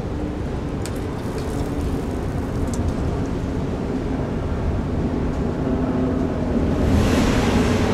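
Steady low engine rumble that grows gradually louder, with a hiss joining about seven seconds in.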